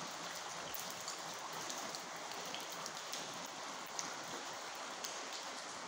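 Water falling onto a flooded concrete workshop floor: a steady hiss with many small drips and splashes pattering through it.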